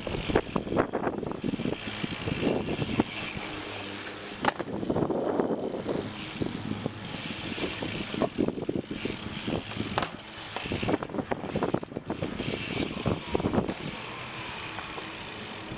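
BMX bike being ridden: the freewheeling rear hub ratchets in rapid ticks, with tyre noise and irregular clattering knocks from the bike.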